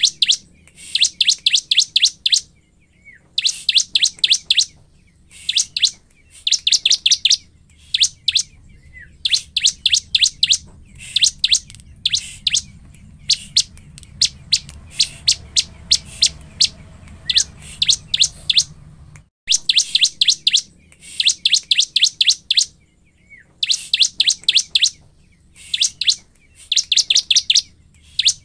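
Bar-winged prinia (ciblek) singing in full song: runs of rapid, sharp, high notes about a second long, repeated every second or two, with a pause of several seconds midway.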